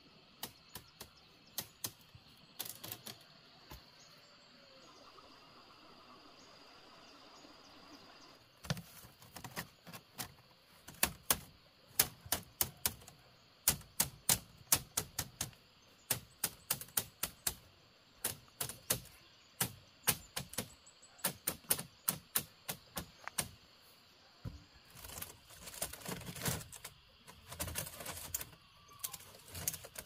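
Machete blade striking split bamboo strips and stakes: runs of sharp cracks, several a second, starting about nine seconds in. Near the end, bamboo strips scrape and rustle as they are worked into a woven fence.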